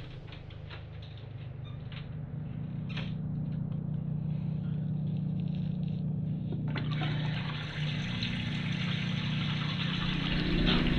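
A low steady hum with a few light clicks, then about two-thirds of the way in a tap starts running water into a sink and keeps running steadily.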